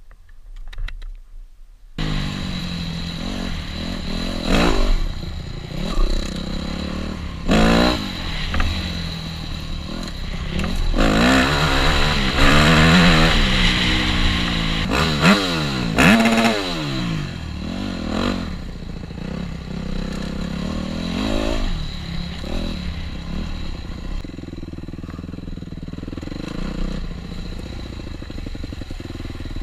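Yamaha YZ250F dirt bike's single-cylinder four-stroke engine revving up and down as it is ridden, its pitch rising and falling again and again. The sound starts suddenly about two seconds in.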